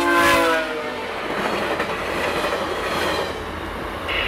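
VIA Rail passenger train led by F40PH-2 locomotive 6402 passing at speed. The end of its horn blast drops in pitch as the locomotive goes by and cuts off within the first second. Then comes the rush and clatter of the passenger cars, easing off near the end.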